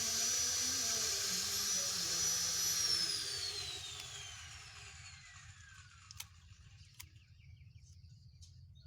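A motor-driven machine runs with a steady high whine, then is switched off about three seconds in and winds down, its whine falling in pitch as it fades. Two sharp clicks follow near the end.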